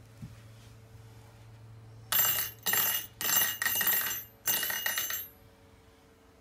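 Ice-fishing rattle reel ringing in four or five quick metallic bursts, starting about two seconds in: a fish is taking line off the reel on a bite.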